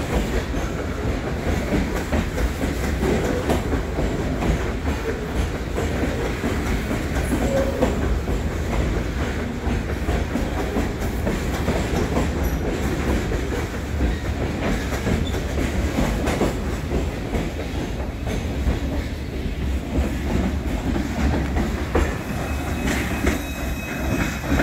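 Freight train of covered hopper cars rolling past below, with a steady low rumble and the clickety-clack of wheels over the rail joints. The train's last car passes near the end.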